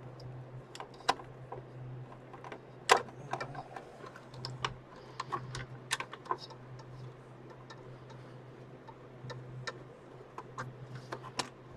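Irregular clicks and light taps of hard plastic and metal parts being handled while a desktop PC's CPU cooler and its plastic mounting clips are worked loose, the sharpest click about three seconds in. A steady low hum runs underneath.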